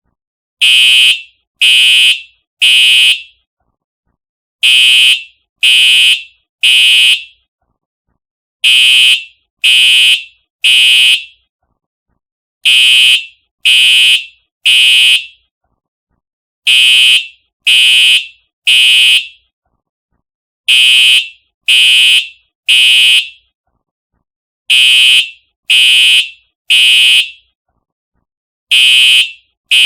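Simplex TrueAlert fire alarm horn sounding the temporal-three evacuation pattern: three short, shrill blasts about a second apart, then a pause of about a second and a half. The pattern repeats every four seconds.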